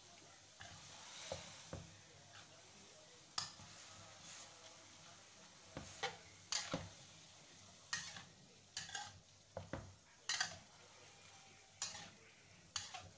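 Metal spatula scraping and clinking against a wok as Sabah yellow noodles are tossed in sauce, in irregular strokes about a dozen times. A faint sizzle underneath.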